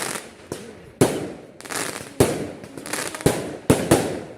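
Fireworks display: a rapid series of loud bangs, about two a second, each trailing off in a brief crackle and echo.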